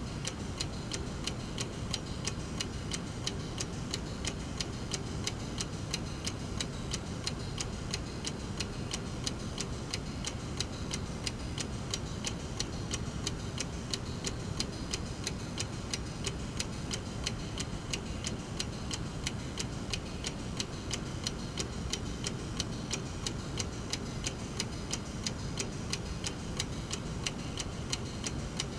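Brass mechanical clock movement ticking evenly, several ticks a second, over a steady low background rumble.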